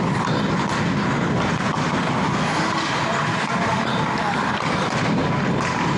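Ice hockey skate blades scraping and carving on rink ice, heard close up from a helmet-mounted camera as the wearer skates, a steady, even noise.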